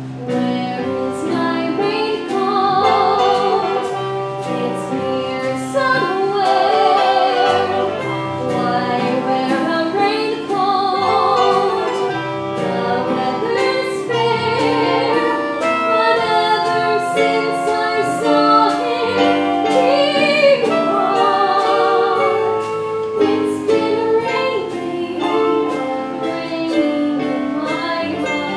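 A female vocalist singing a slow show tune with vibrato, accompanied by a live pit band, with a light percussion tick about twice a second.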